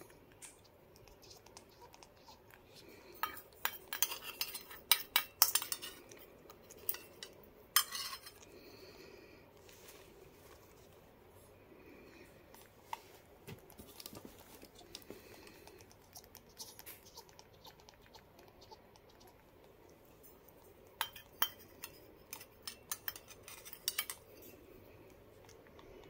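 Sharp metallic clinks and taps, in two clusters, as a lovebird chick pecks seed from a metal feeding spoon against a stainless steel bowl.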